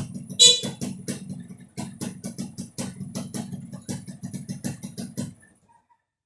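Music with guitar and a steady, even beat, which stops abruptly about five seconds in.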